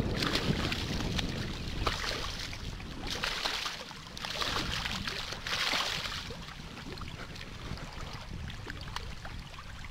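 A hooked striped bass splashing and thrashing in shallow water as it is landed, in several bursts over the first six seconds, then quieter sloshing and lapping water.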